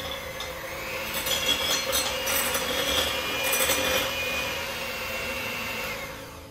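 Electric hand mixer running steadily, its beaters whirring through egg yolks in a glass bowl; the motor stops near the end.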